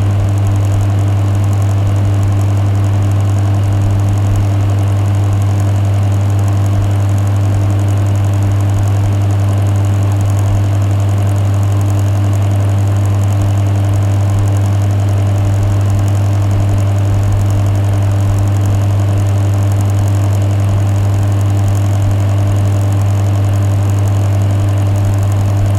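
Bathroom extractor fan running steadily: a strong low hum with fainter higher tones over an even whir of moving air.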